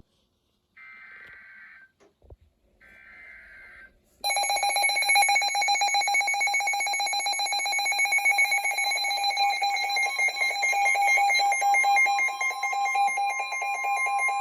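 Emergency Alert System broadcast over NOAA Weather Radio: two roughly one-second bursts of screeching digital header data, then about four seconds in a loud, steady alert tone starts and holds, the attention signal announcing that a warning is about to be read.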